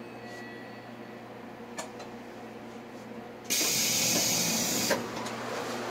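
Steady low hum inside a halted train car, then about three and a half seconds in a sudden loud burst of compressed-air hiss from the train's air system. The hiss lasts about a second and a half and ends in a sharp clunk.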